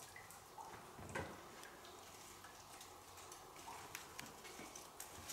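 Faint, scattered clicks and taps from a landing net and fishing gear being handled on a rock ledge, with one slightly louder knock about a second in.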